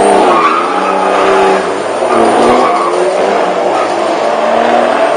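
Car engine running hard under acceleration down a drag strip, its pitch rising and dropping back a few times as it goes through the gears.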